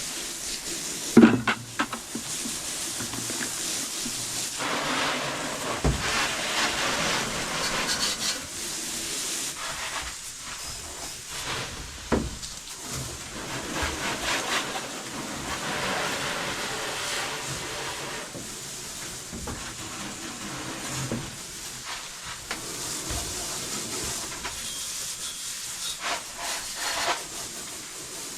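Water spraying in stretches of a few seconds onto a dirt late model race car, washing mud and dust off the body and tyres. A sharp knock sounds about a second in.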